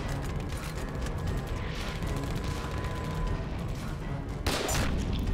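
Battle sound effects: a steady crackle of distant gunfire over a low rumble, under background music, with one louder shot or burst about four and a half seconds in.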